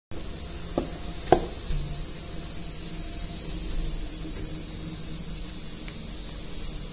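Steady hiss throughout, with two soft knocks about a second in as hands knead stiff wheat-flour dough against a steel bowl.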